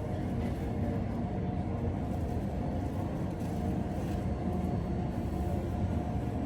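Steady low rumble of a jet airliner heard from inside the cabin, engines running, with a faint steady whine over it.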